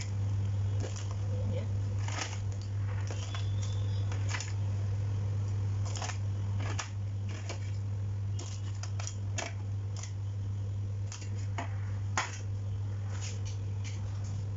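Raw blue crabs and shrimp being dropped one by one into a metal wok, their hard shells clacking against the pan in scattered sharp clicks, over a steady low hum.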